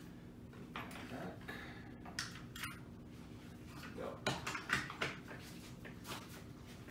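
Scattered light knocks, clatter and rustling of tools and objects being handled on a wooden workbench, a little louder about four to five seconds in, over a steady low hum.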